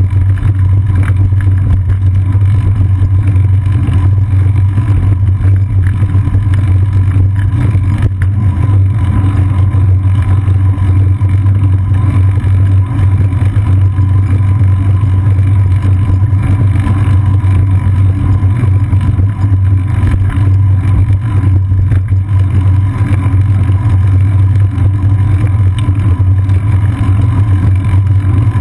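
Steady, loud low rumble of strong wind and riding vibration on a bicycle-mounted camera moving along a paved path, unchanging throughout.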